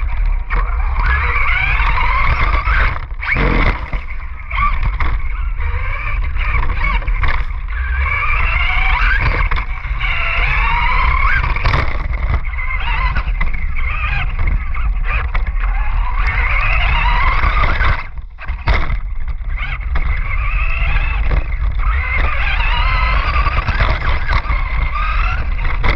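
RC car driving on sand, its motor whining up and down in pitch as it speeds up and slows again and again. A steady low rumble sits underneath, and the sound dips briefly twice.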